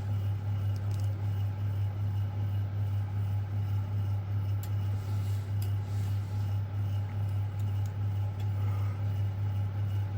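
Loud steady low electrical hum that wavers slightly in level, with a few faint light clicks over it.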